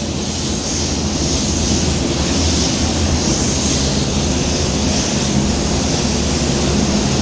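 Iwata LPH 300 spray gun hissing steadily as it sprays a coat of sealer, over a steady low hum from the paint booth's air handling.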